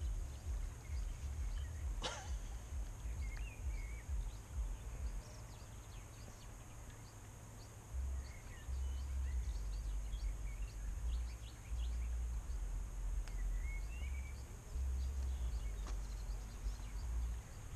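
Wind gusting on the microphone in uneven bursts of low rumble, with faint scattered bird chirps and one sharp click about two seconds in.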